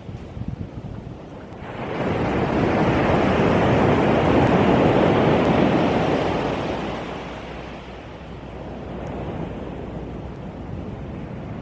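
Ocean surf on a pebble beach: a wave breaks about a second and a half in, its rush swelling for a few seconds and then fading into a lower, steady wash of water.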